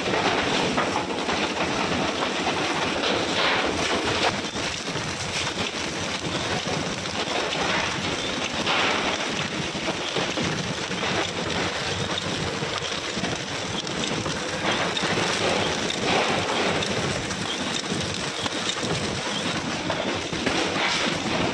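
Bakery machinery running: a steady, dense hiss-like clatter with no clear rhythm.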